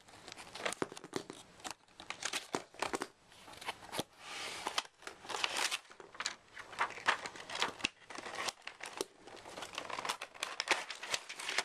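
A cardboard box and the clear plastic blister tray inside it being handled and opened: irregular crinkling and rustling with small clicks and taps.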